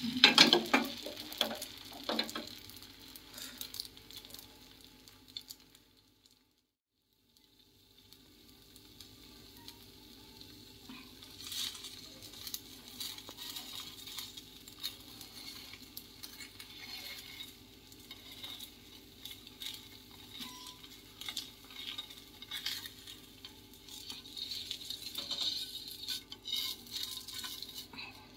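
Thin patishapta batter sizzling gently in an oiled nonstick pan. Near the start the pan knocks and rattles against the gas burner grate as it is swirled. After a short silent break, a faint sizzle continues with light scattered clicks.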